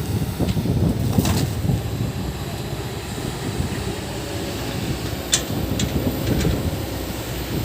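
Excavator diesel engine running with a steady low rumble, with a few short sharp metallic clicks about a second in and again near the end.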